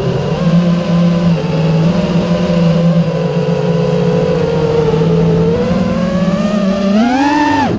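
A motor running with several steady pitched tones that waver slightly, the pitch rising near the end and then dropping away sharply.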